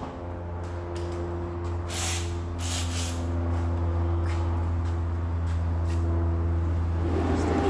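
Steady low mechanical hum that grows slowly louder, with two short hisses about two and three seconds in.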